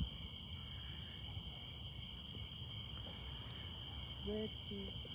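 Crickets chirring in a steady high drone over a low rumble. Near the end come two short, low hoot-like calls about half a second apart.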